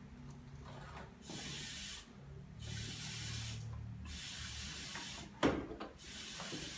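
Someone takes about four draws on a single-hose acrylic hookah fitted with a silencer. Each draw is a breathy hiss about a second long, with a low murmur beneath it and no loud bubbling. A brief sharp sound comes about five and a half seconds in.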